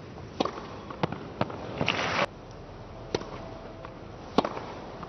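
Tennis ball being hit by rackets and bouncing on a clay court during a rally: sharp single pops spaced about half a second to a second and a half apart. A short louder rush of noise stops abruptly about two seconds in.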